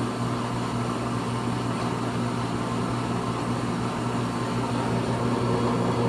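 Pratt & Whitney lathe running with its feed rod turning: a steady mechanical whir over a constant electric hum.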